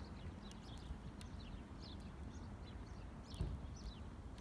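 Small birds chirping in quick, short falling notes, several a second, over a low rumble, with a few sharp crackles from a burning heap of matchsticks.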